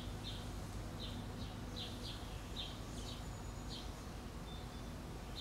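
A small bird chirping over and over, short high chirps about two a second, over a low steady hum.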